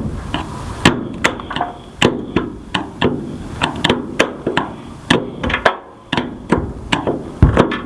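Quick, irregular series of sharp knocks and strikes, two or three a second, from hand tools working on a 1963 Chevrolet C10 pickup's windshield to free it from the cab.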